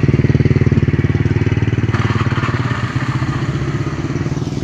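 A small engine, such as a motorcycle's, running close by with a fast, even low pulse, loudest at the start and slowly easing off. Steady rain hiss lies underneath.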